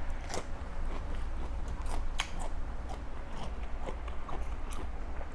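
A person chewing a mouthful of raw cabbage with spicy salad, giving irregular crisp crunches, over a low steady hum.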